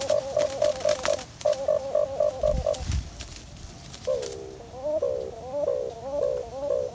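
White-eared brown dove call: a rhythmic run of short low hoots, about three a second, that breaks off about halfway and starts again as notes that swoop up and down. A dull low thump just before the break.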